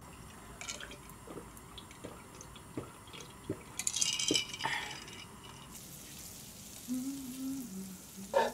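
Drinking from a glass, then butter starting to sizzle in a hot frying pan about six seconds in as it is rubbed around the pan. A sharp knock of the utensil against the pan comes near the end.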